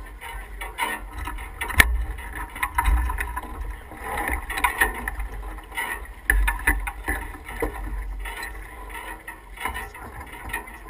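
Sailboat under way: wind buffeting the microphone in gusts over water wash along the hull, with scattered knocks of crew and gear on deck and one sharp knock about two seconds in.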